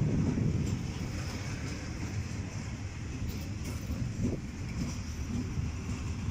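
Freight train of open-top coal wagons rolling past close by, a steady low rumble of wagon wheels on the rails.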